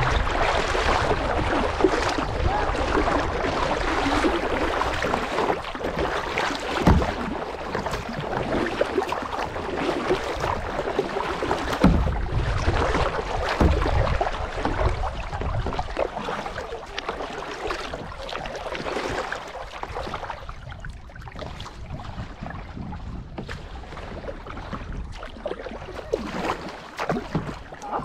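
Water rushing and splashing around a kayak running small rapids, with a couple of sharp knocks and wind on the microphone; the rushing eases off about two-thirds of the way through.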